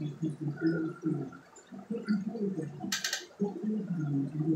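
Aquarium water bubbling and gurgling, with a short hiss about three seconds in.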